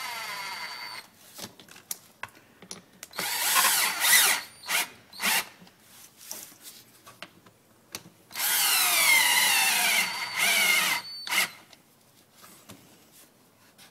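Power drill-driver driving in the bolts that hold a ducted vacuum motor's adapter bracket. It runs in several bursts, the longest about three seconds, its pitch sinking as each bolt takes up load, with small clicks and knocks of handling between runs.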